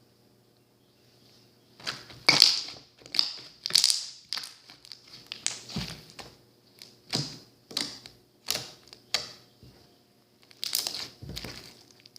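Slime being squeezed and pressed by hand, making short crackling, popping squishes about once or twice a second after a quiet start, with a brief pause before a last longer squish near the end.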